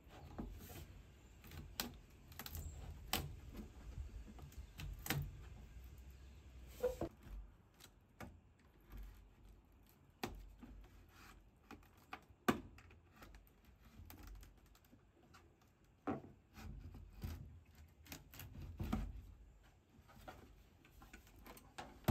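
Small screwdriver worked along the plastic seam of a Starlink dish's housing, prying it apart: faint, irregular clicks and scraping of metal on plastic, with soft handling bumps.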